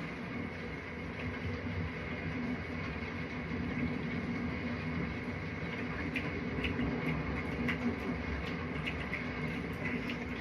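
A steady mechanical hum with a whirring, noisy character, with a few light clicks and taps in the second half.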